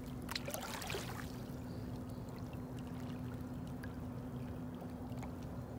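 Shallow water splashing and swishing as hands and wading legs move through it, most of it in the first second or so, then small trickles and drips. A steady low hum runs underneath.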